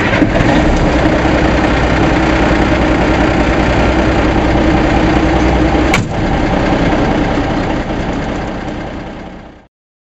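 Truck engine running loud and steady, with one sharp click about six seconds in, then fading away near the end.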